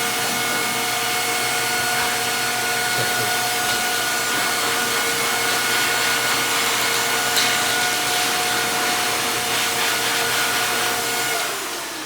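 Dog blow dryer running: a steady rush of air with a constant whine. Near the end it is switched off and starts to wind down, the whine dropping in pitch.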